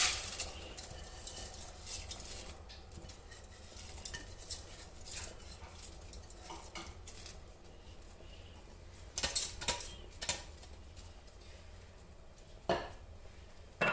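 Occasional clinks and taps of a utensil against a stainless steel cooking pot, with a quick cluster of sharp clinks about nine seconds in and one more near the end, over a faint steady low hum.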